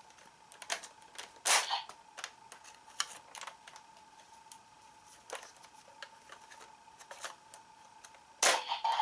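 Sharp plastic clicks and knocks from handling a Kamen Rider Ryuki Drag Visor toy gauntlet and its card deck, the loudest about a second and a half in, with a loud snap near the end as the Drag Visor's card slot is shut. A faint steady tone runs underneath.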